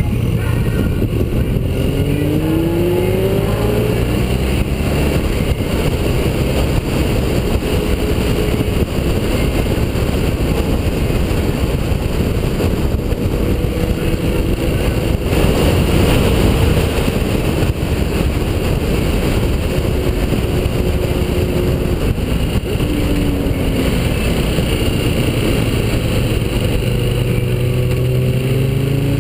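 BMW touring motorcycle engine running at road speed under heavy wind rush, picked up by a camera mounted on its fairing. The engine pitch climbs as the bike accelerates, about two seconds in and again near the end, and holds steady in between.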